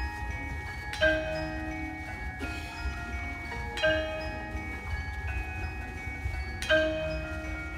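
Mallet keyboard percussion of a drumline's front ensemble playing slow chords. A new chord is struck about every three seconds and rings on between strikes.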